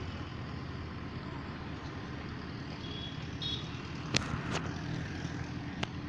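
Pliers and copper wire being handled while leads are twisted onto the fan's coil loops: three short sharp clicks in the second half, over a steady low background rumble.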